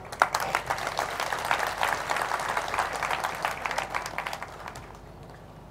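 Crowd applauding, a dense patter of many hands clapping that thins out and dies away about five seconds in.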